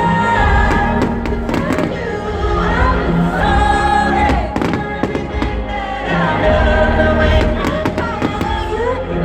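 Fireworks bursting with frequent sharp bangs over loud music with a singing voice.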